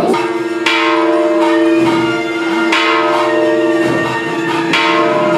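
Hindu temple bell being rung, struck about every two seconds, each strike ringing on under the next as a steady tone.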